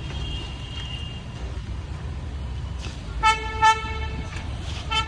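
Three short car horn toots, two close together about three seconds in and one near the end, over a steady low vehicle rumble.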